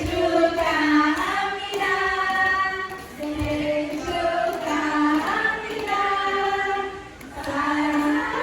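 Singing: a high, female-range voice holding long melodic notes, with short dips between phrases.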